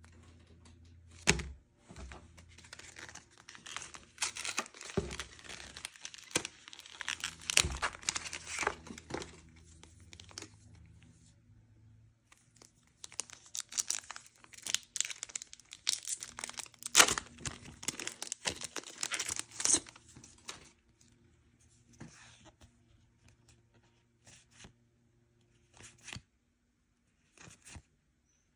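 Pokémon trading card booster pack wrappers being torn open and crinkled by hand, in two long stretches with sharp rips. Near the end only scattered light clicks and rustles follow as the cards are handled.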